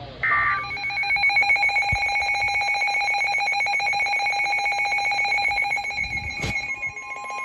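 Emergency Alert System tones: the last short burst of the SAME header data, then the two-tone EAS attention signal sounding steadily with a fast beating, ringing quality. A sharp click about six and a half seconds in, and a second, higher steady tone joins near the end.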